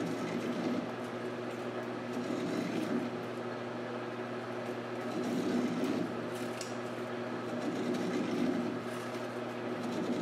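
Stanley hacksaw cutting through the last core of a 304 stainless steel bar that is spinning in reverse on a Precision Matthews 1236-T lathe, over the lathe's steady hum. The saw noise swells every two to three seconds.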